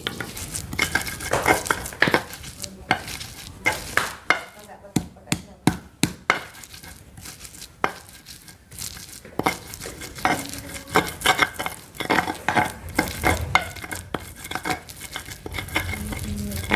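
Stone pestle grinding spice paste in a stone mortar (Indonesian ulekan and cobek), with irregular knocks and grating scrapes of stone on stone, several a second.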